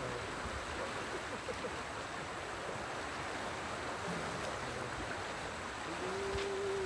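Muddy canal water rushing steadily out through the culvert beneath a concrete sluice gate. Near the end a steady low tone, like a hoot, sounds for about a second.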